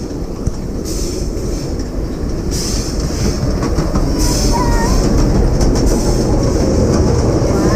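Ride-on miniature railway train rolling along the track, its wheels rumbling and clattering. It grows louder about halfway through as the train runs into a tunnel.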